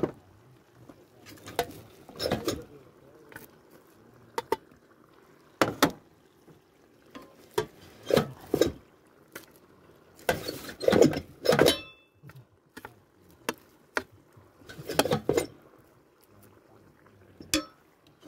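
Aluminium mess tins and their wire handles knocking and clinking, with scraping, as rice is scooped and the tins are moved. The knocks come irregularly, a cluster of them about ten to twelve seconds in.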